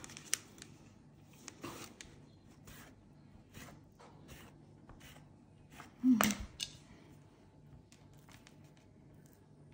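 A plastic dough scraper pressed down through a thin round of dough onto a stone countertop, giving scattered short taps as strips are cut, with one louder knock about six seconds in.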